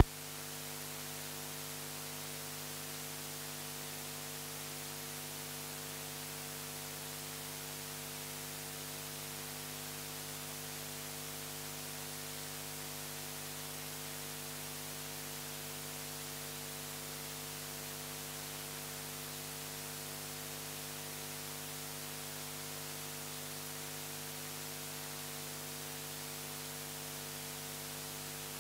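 Steady electrical hum and hiss: several constant tones under an even hiss, with no change throughout.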